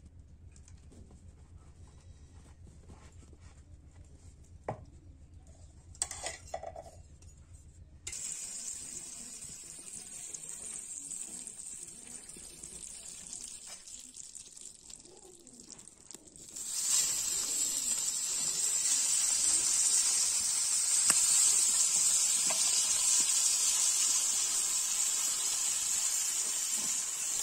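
Cooking oil in a flat iron pan over a wood fire: a quiet start with a few light knocks, then a steady sizzle from about eight seconds in. A little after halfway the sizzle turns much louder and stays loud, as small fish fry in the hot oil.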